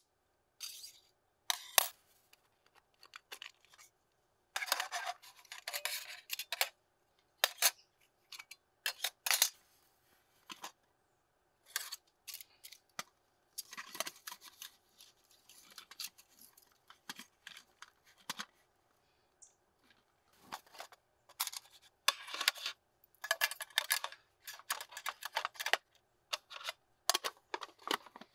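Scattered clinks, taps and rustles of lightweight metal camp-cooking gear being handled and packed on an aluminium folding table. A titanium pot and a perforated spirit-burner stand are lifted and knocked together, a mesh stuff sack rustles as it is worked over them, and an aluminium mess tin is set down on the table.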